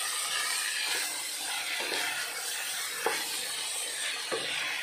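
Vegetables sizzling with a steady hiss in a stainless steel pot as they are stir-fried with a wooden spatula, with a few light knocks of the spatula against the pot.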